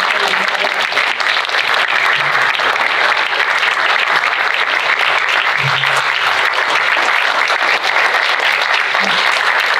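Audience applauding: a roomful of people clapping steadily, with a few voices faintly under it.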